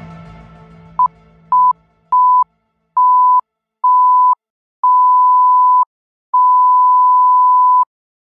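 Electronic beep tone at a single steady pitch, sounded seven times with each beep longer than the last, the final one held about a second and a half. Music fades out just before the first beep.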